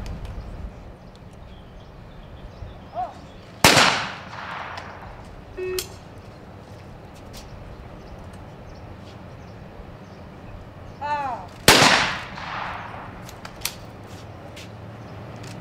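Two single 12-gauge trap shotgun shots, each loud and sharp with an echoing tail across the open range, about eight seconds apart. Each is set off by the shooter's short call for the target just before it. A short electronic beep sounds a couple of seconds after the first shot.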